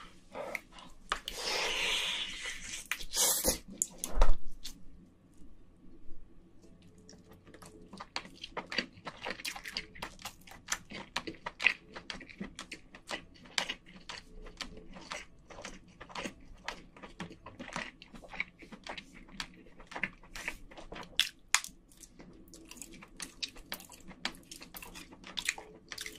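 Close-miked chewing of cooked king crab meat: a long run of wet mouth clicks and smacks. Near the start, about two seconds of rough crackling, then a single loud knock about four seconds in.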